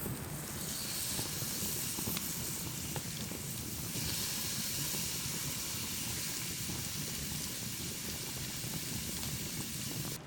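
Meat sizzling as it cooks: a steady frying hiss with a few faint pops.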